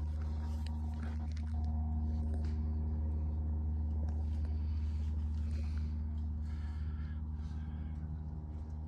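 A steady low hum of a motor running, with a few faint snaps or clicks.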